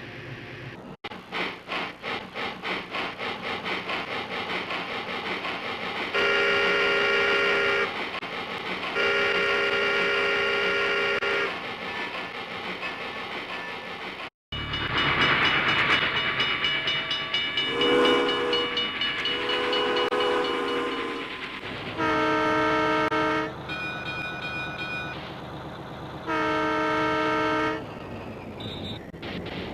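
Train horn sounding in long blasts over a rapid rhythmic wheel clatter, cut off suddenly about halfway. Then a second train recording with a rushing noise, lower horn tones, and several more horn blasts.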